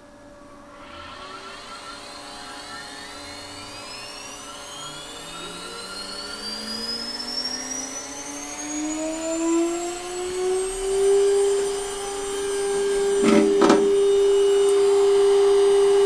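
JGL ISO20 ATC spindle on a 6040 CNC router spinning up from rest on a VFD command to 24,000 rpm: a whine that rises steadily in pitch for about eleven seconds, then holds steady at full speed (400 Hz drive frequency). A few brief knocks come near the end.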